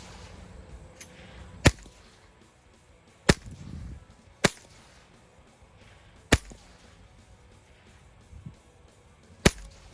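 Ruger .22 Long Rifle rifle firing single shots, five sharp cracks at uneven gaps of one to three seconds.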